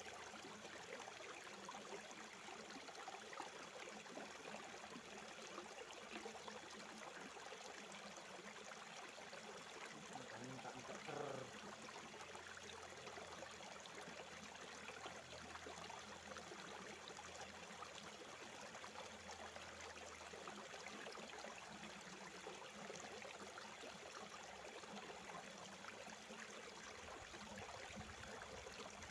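Faint, steady rush of river water flowing over rocks. A brief wavering sound rises above it about a third of the way in.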